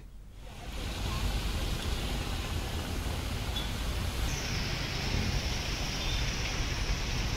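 Steady noise of a traffic-jammed street in heavy rain, a hiss of rain and vehicles. It swells in over the first second and brightens a little past halfway.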